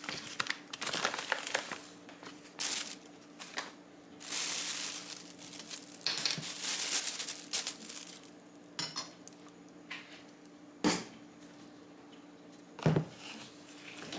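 Clear plastic bag of dry cat kibble crinkling and rustling as it is handled, with the kibble shifting inside, in several spells of a second or two. Near the end come three short, sharp clicks.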